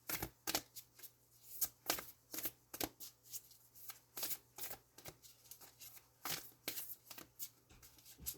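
A deck of oracle cards being shuffled by hand: a run of irregular sharp card snaps and slaps, a few each second.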